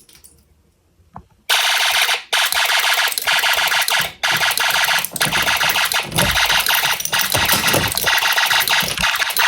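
Snap Circuits fire alarm horn going off after the pull station is activated: a harsh electronic buzz that starts abruptly about a second and a half in and keeps sounding, with a few brief breaks.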